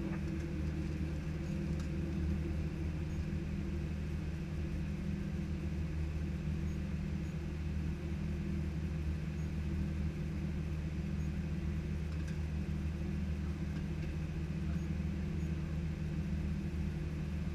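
Steady low drone inside the cockpit of an Airbus A319-115 on the ground after landing, its CFM56 turbofan engines at idle with the cockpit fans running.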